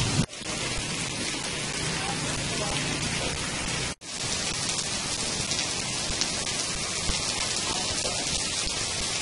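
Heavy rain falling steadily on a paved road and wet ground, a constant hiss that cuts out for an instant twice, just after the start and about four seconds in.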